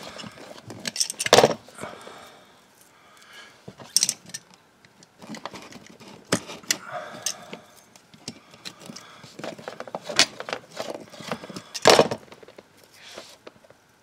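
A knife scoring and cutting around a coaxial cable, pressed hard to get through the inner sheath down to the centre copper conductor. Scattered scrapes and handling noise, with a few sharp clicks and knocks of blade and cable against a wooden block, a second or more apart.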